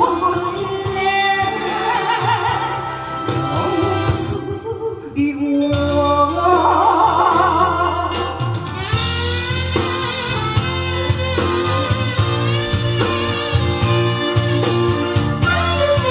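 A woman singing a Korean song into a microphone over a backing track with a steady bass, holding long notes with a wide vibrato.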